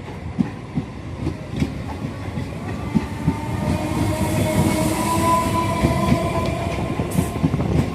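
Electric local train (EMU) running along the track, its wheels clattering irregularly over the rail joints. A steady whine of several tones comes in about three seconds in, and the sound grows slowly louder as the train comes closer.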